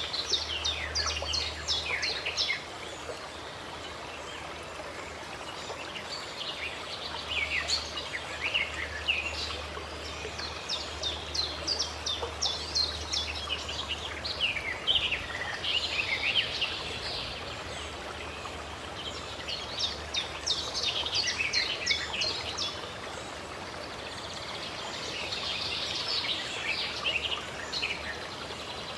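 A steady rush of running water, with songbirds singing phrases of rapid, high, descending chirps every four or five seconds.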